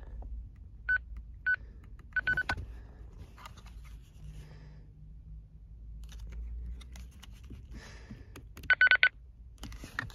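Handheld two-way radios beeping as their channels are changed: short beeps of one pitch, singly about a second in and again half a second later, a quick run of beeps a moment after, and a fast loud cluster near the end, with soft clicks from handling the radios between.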